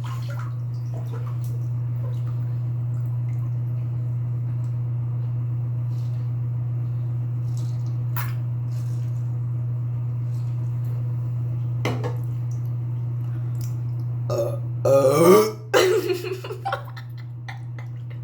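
A steady low hum, then about two-thirds of the way in a person lets out one big, loud burp lasting about a second and a half, its pitch rising at the start, with a few smaller sounds trailing after it.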